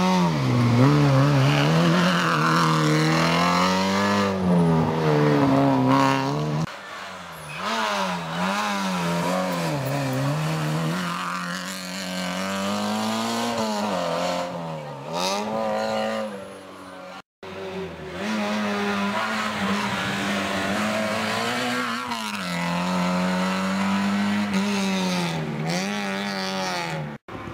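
Peugeot 106 rally car's engine revving hard and lifting off again and again as it drives through corners. The pitch climbs and falls repeatedly, broken by a short gap twice where one pass gives way to another.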